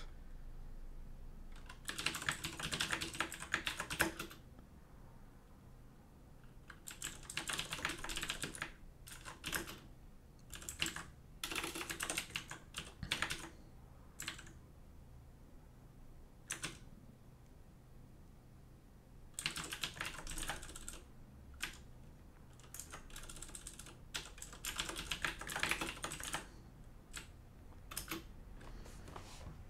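Typing on a computer keyboard, in bursts of rapid keystrokes separated by pauses of one to three seconds.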